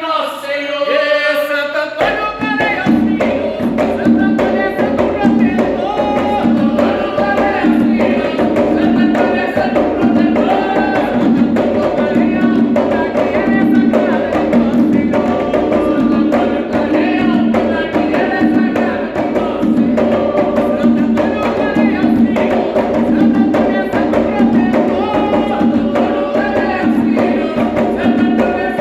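A group sings an Umbanda ponto, and atabaque hand drums join in about two seconds in, keeping a steady rhythm under the voices.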